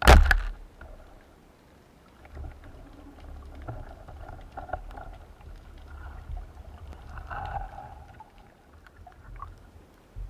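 Underwater sound through a camera housing: one sharp, loud bang at the very start, then low rumbling water movement with faint clicks and swishes.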